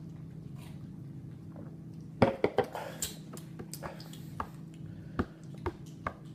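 Faint gulping from drinking out of beer cans, then a cluster of sharp knocks about two seconds in as two aluminium cans are set down on a wooden table, followed by scattered lip smacks while tasting. A steady low hum runs underneath.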